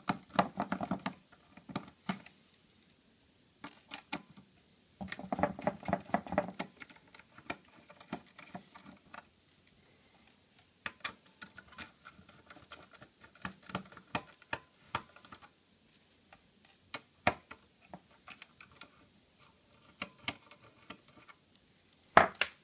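Hand screwdriver clicking and scraping in small screws as the screws holding the radio modules to the access point's circuit board are undone, in irregular ticks with a few denser bursts. A sharp click near the end, as small screws are set down on the wooden table.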